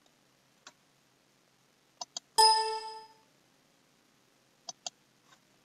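Computer mouse clicks, a quick double click about two seconds in, followed at once by a Windows alert chime that rings out and fades within a second, the sound of an error message popping up. Another quick pair of mouse clicks comes near the end.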